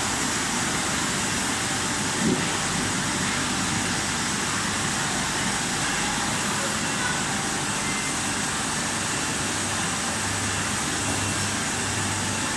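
Industrial crate washing machine running with a steady, even noise, with a single short knock about two seconds in.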